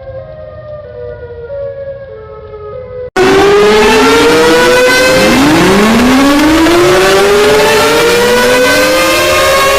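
An electronic alarm tone stepping down in pitch in a repeating pattern, cut off abruptly about three seconds in by loud civil-defense sirens winding up: several overlapping rising wails that start one after another and settle into a steady high tone.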